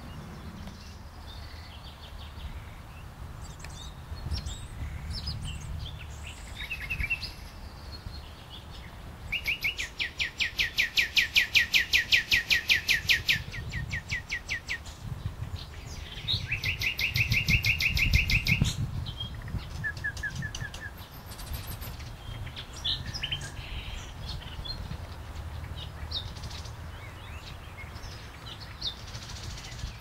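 Songbirds singing: two long, even trills of quickly repeated high notes, the first about nine seconds in and lasting some five seconds, the second shorter, about sixteen seconds in, among scattered short chirps from other birds. A low rumble runs underneath.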